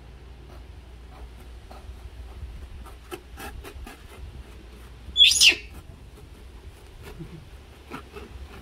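Knife blade cutting through taped cardboard, a run of soft scrapes and clicks. About five seconds in comes one short, high-pitched rising squeal from a baby monkey, the loudest sound.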